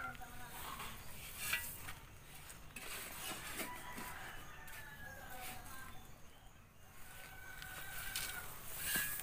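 Roosters crowing, with long pitched crows about a third of the way in and again near the end, and a few sharp knocks in between.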